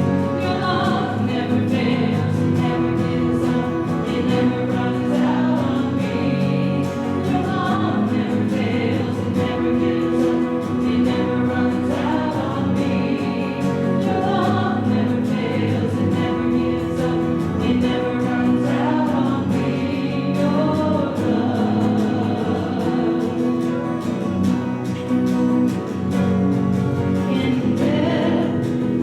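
A church choir singing a worship song with accompaniment, the voices holding long sustained notes.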